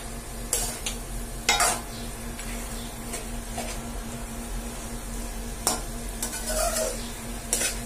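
Beef adobo and bean sprouts sizzling in an aluminium wok while a spatula stirs them, scraping and knocking against the pan a few times, over a steady low hum.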